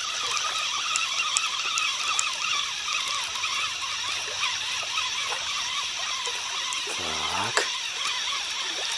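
Many birds singing and chirping at once in a dense, unbroken chorus, with a brief low voice-like sound about seven seconds in.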